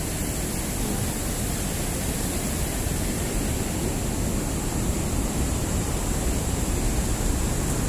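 Steady rushing of a shallow river flowing over stones below a small dam.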